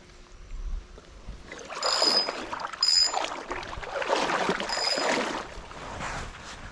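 Water sloshing and splashing in uneven bursts from about two seconds in, with three short high squeaks among them.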